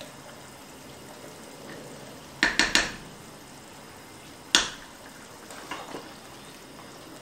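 A metal spoon knocks against the rim of a coconut cream can: three quick taps about two and a half seconds in, then one sharp clink about four and a half seconds in. A few lighter clinks follow as a glass pan lid is handled, over the faint steady hiss of curry simmering in a wok.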